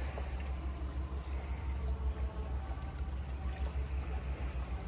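Low, fluctuating rumble of a longtail boat engine running, over a steady high-pitched insect drone.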